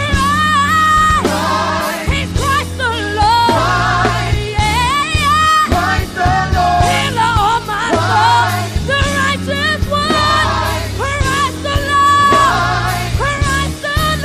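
Live worship music: a vocalist sings a melody with vibrato over a full band, with bass and drums.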